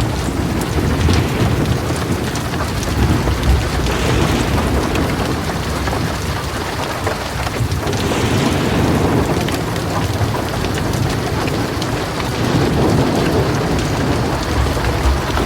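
Heavy rain pouring steadily, with low, rolling thunder rumbling underneath that swells and eases. The rain briefly grows heavier about four and eight seconds in.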